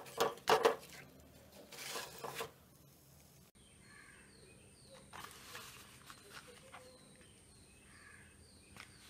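Banana leaf crinkling and rustling in a quick run of handling strokes as sardine parcels are wrapped and set in the pan. After a sudden break a few seconds in, only a faint steady background with a few soft high chirps remains.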